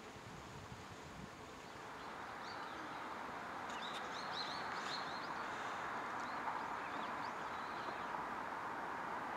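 Outdoor ambience: a steady, hissing hum that swells gradually over the first few seconds and then holds, with a few faint bird chirps about four to five seconds in.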